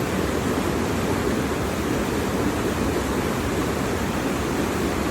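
Waterfall rushing steadily: an even roar of falling water with no breaks.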